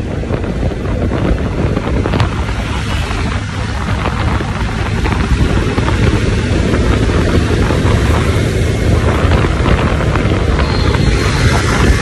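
Wind rushing over the microphone of a motorcycle riding at speed, with engine and road noise underneath, steady throughout.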